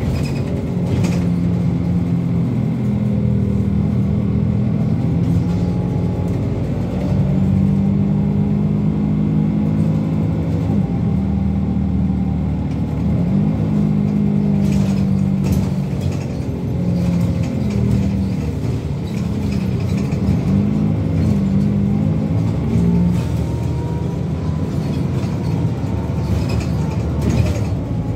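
City bus engine and drivetrain running while the bus drives, heard from inside the passenger cabin. The engine note rises and falls several times as the bus pulls away and slows, with a few brief clicks along the way.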